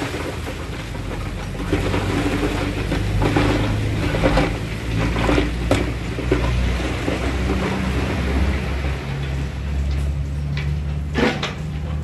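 Diesel engines of a dump truck and a bulldozer running steadily, with loose rock clattering and knocking as it tumbles off the tipped truck bed and is shoved by the dozer blade. There is a sharp knock near the end.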